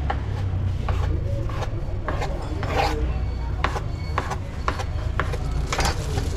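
Food being prepared: a string of short, irregular scrapes and knocks of utensils, roughly one every half second, one a little longer about three seconds in, over a low steady rumble.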